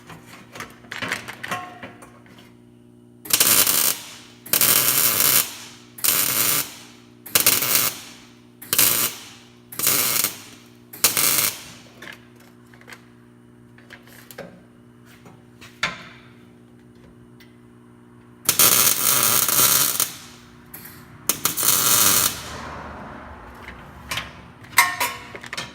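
Arc welding on an exhaust pipe: a series of short welding bursts, about one every second and a half, then two longer welds near the end, each a harsh crackle that starts and stops abruptly, over a steady low hum.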